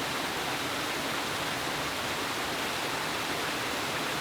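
Rushing water from a waterfall, a steady even rush with no breaks.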